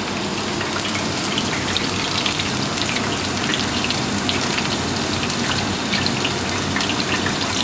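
Battered potato-slice snacks frying in a chip-shop deep-fat fryer: the oil sizzles steadily with a dense, fine crackle, as it does when wet battered food has just gone into the hot oil.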